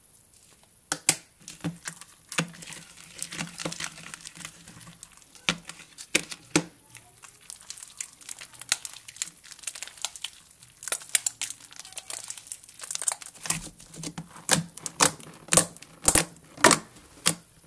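Freshly borax-activated glue slime being stirred, stretched and kneaded by hand: sticky crackling and popping clicks. Near the end they come as louder pops about twice a second as the slime is pressed and folded.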